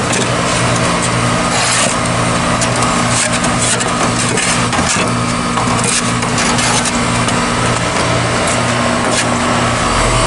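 Goodman GSH13 heat pump outdoor unit running with a steady hum, while snow is scraped and crunched away around it in several brief strokes.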